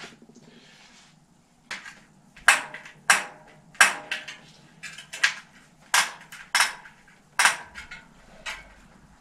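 Sharp metallic clicks and knocks, about a dozen at uneven intervals, from a bicycle's rear wheel being worked by hand to take out a buckle in the rim.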